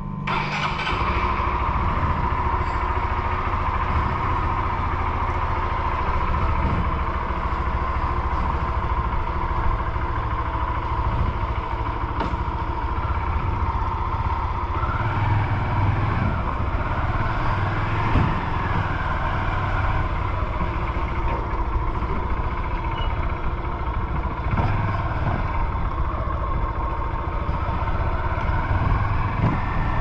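Honda CG Fan 150 motorcycle on the move, its single-cylinder engine running steadily under continuous road and wind noise.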